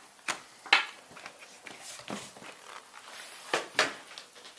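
A few separate sharp clicks and taps of small hard objects being handled, the loudest about three-quarters of a second in and two close together near the end.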